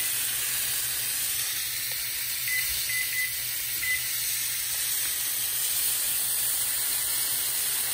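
A bone-in ribeye steak sizzles steadily as it sears in a hot skillet. Between about two and four seconds in, a few short beeps come from the electric range's control panel as the timer is set.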